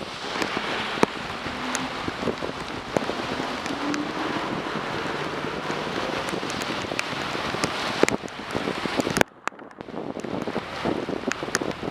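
Heavy rain over a steady hiss of rain, wind and wet road, with many sharp taps of raindrops striking the bike-mounted camera. The sound cuts out for about half a second about three-quarters of the way through, then comes back.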